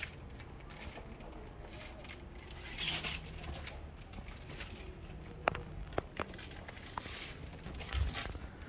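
Rustling and handling noise from fabric suits being shown, with a few sharp light clicks a little past the middle and a dull thump near the end, over a faint steady hum.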